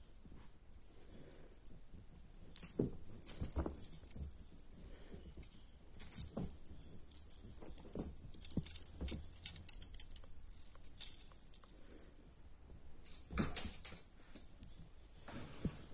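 A small jingle bell rattling in irregular bursts, with light taps and knocks, pausing briefly twice near the end.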